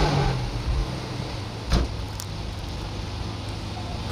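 Willys pickup's Hurricane six-cylinder engine dropping back from a rev to a steady idle, with creek water rushing around the truck. There is one sharp knock a little under two seconds in.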